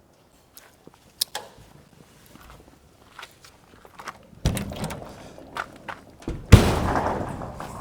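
Clicks and knocks of things being handled, a thud about four and a half seconds in, then a sharp crack and a hiss that fades over about a second: a cold drink can being opened.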